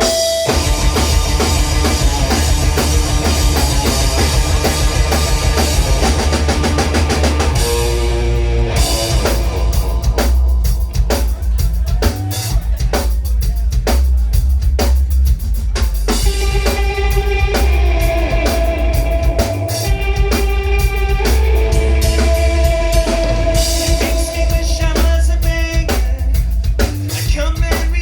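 Rock band playing live, loud: a drum kit driving a steady beat under guitar and a heavy bass low end.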